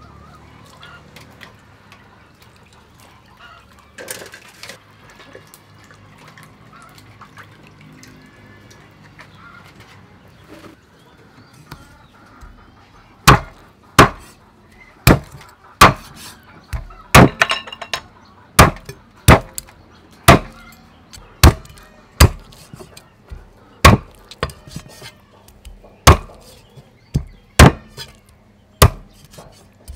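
Meat cleaver chopping raw chicken wings into pieces on a thick wooden chopping block: sharp, loud knocks about one a second, starting about halfway through. Before the chopping, faint bird calls over a quiet background.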